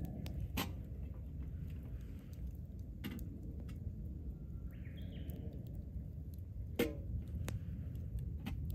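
Wood campfire crackling with scattered sharp pops, the loudest about two-thirds of the way through, over a steady low rumble. About halfway through there is a brief trickle of hot water being poured from a kettle into a cup.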